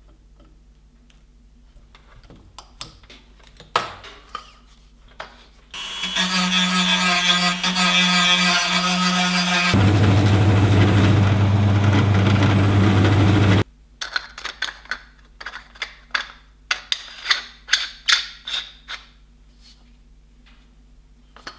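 An electric power tool's motor runs steadily for about four seconds, then continues at a deeper pitch for about four more before cutting off abruptly. Before and after it come scattered clicks and light knocks of small parts being handled.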